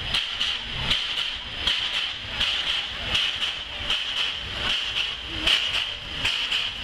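Steam locomotive blowing off steam: a continuous hiss that surges rhythmically, about once every three quarters of a second.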